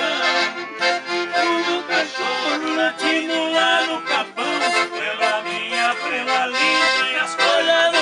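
Piano accordion playing a tune, several notes sounding together.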